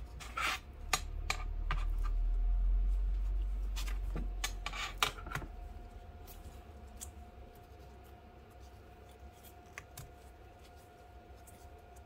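Gloved hands handling a tablet's LCD panel and frame: plastic-glove rubbing and a quick series of light clicks and taps over a low rumble for the first five seconds, then only a few faint ticks.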